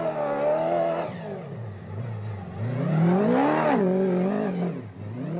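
Rally car engine revving up and down several times, its pitch rising most steeply about three seconds in and then falling away.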